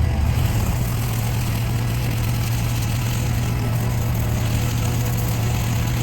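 Gas engine of a pressure washer running steadily at constant speed, with a steady hiss above it.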